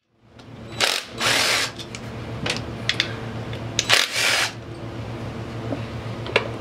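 Cordless power driver spinning out the bolts of a Polaris engine's recoil starter cover in three short bursts, with a few light metallic clicks between them, over a steady low hum.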